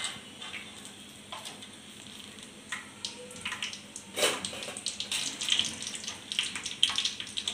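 Peanuts deep-frying in hot oil in a steel mesh strainer in a kadhai: a steady sizzle with scattered crackles and pops.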